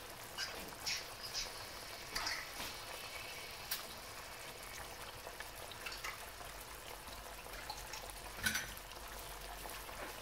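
Tomato sauce with olive oil and olives simmering in a frying pan: a soft, steady sizzle with scattered pops from bursting bubbles, and a couple of sharper clicks.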